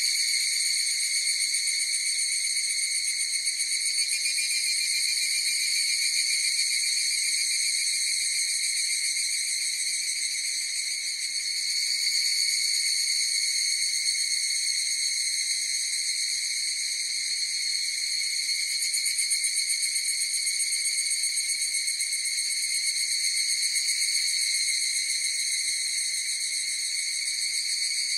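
A chorus of higurashi (evening cicadas, Tanna japonensis) singing together in a steady, high-pitched drone of overlapping calls that swells and eases slightly.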